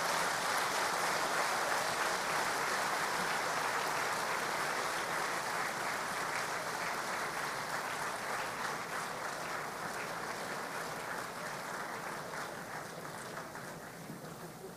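A large audience applauding steadily, the clapping gradually dying away toward the end.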